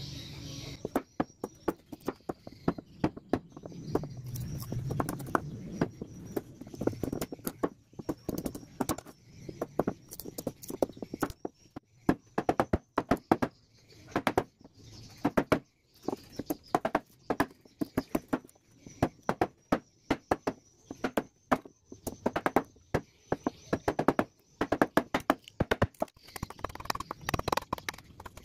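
A machete chopping and splitting wood: many sharp knocks of the steel blade biting into a hardwood block at an irregular pace, in quick runs broken by short pauses.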